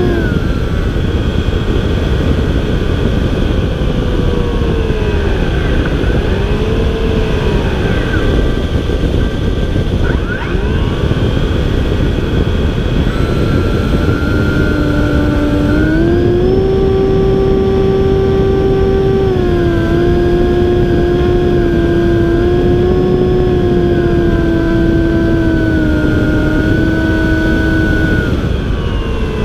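Onboard sound of an RC airplane's motor and propeller in flight: a steady whine whose pitch dips and comes back up a few times in the first ten seconds, then steps higher about sixteen seconds in, over a constant rush of wind on the microphone.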